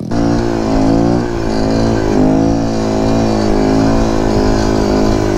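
Kawasaki Z125 Pro's 125 cc single-cylinder four-stroke engine running under way, its pitch rising and dipping gently a few times with the throttle.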